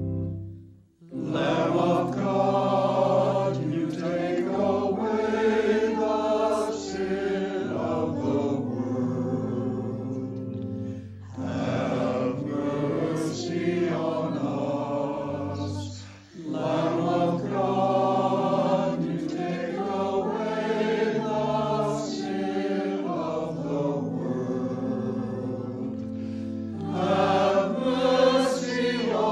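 A choir sings a slow communion song in long, sustained phrases, pausing briefly about 11 and 16 seconds in. A held keyboard chord from the introduction dies away just before the voices come in.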